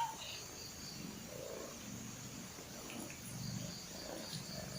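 A domestic cat purring faintly, a low uneven rumble.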